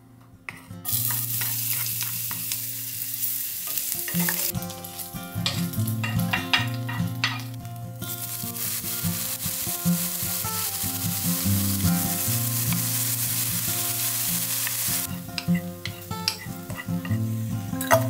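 Food sizzling in hot oil in a nonstick frying pan, starting suddenly about a second in, with a wooden spatula stirring it and clicking and scraping against the pan.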